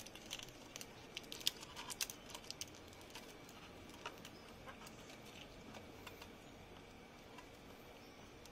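Faint scattered clicks and taps of fingertips pressing a sticker emblem down onto a motorcycle exhaust muffler. The taps are thickest in the first two or three seconds and then come only now and then.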